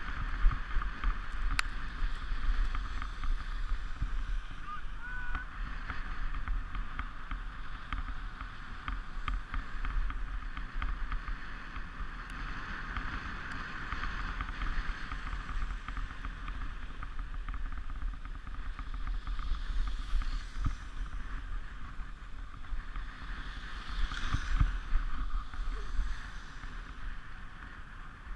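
Sport sled's runners sliding and scraping over the packed snow of a toboggan run at speed: a steady rushing scrape with many small clicks and knocks, swelling louder twice near the end.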